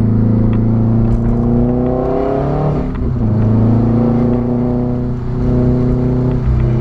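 2006 Subaru WRX's turbocharged flat-four, muffler removed, accelerating hard on a loud, open exhaust note. The pitch climbs, dips at a gear change about three seconds in, climbs again, and drops at another shift a little after five seconds.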